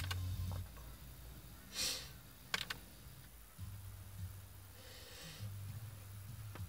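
Faint clicks of a Ford FG Falcon's steering-wheel seek buttons being pressed, at the start and again about two and a half seconds in, over a low steady hum, with a single breath a little before the second click.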